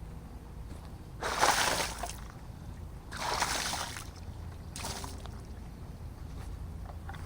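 Three short bursts of spray or splashing, about a second each for the first two and shorter for the third.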